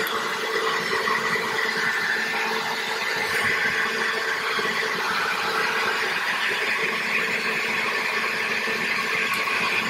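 Handheld leaf blower running steadily with a constant whine, blowing air into a wood fire in a fire pit to bring it quickly to embers.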